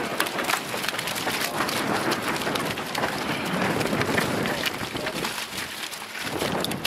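Rubber boots crunching and shuffling on a gravel beach in many irregular steps, with wind buffeting the microphone.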